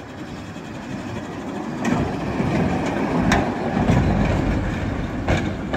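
Konstal 805N tram passing close by, its running rumble building up and then easing, with four sharp clacks of the wheels on the track.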